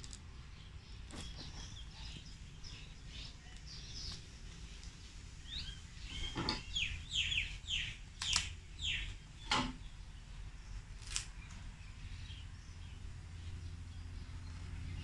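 Birds chirping, a quick series of short falling calls near the middle, with a few sharp clicks among them from small scissors snipping string; a steady low hum underneath.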